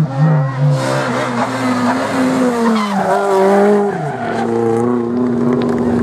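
Rally car engine revving hard, its pitch climbing and falling, with tyres squealing. About four seconds in the revs drop suddenly and the engine holds a steady lower note.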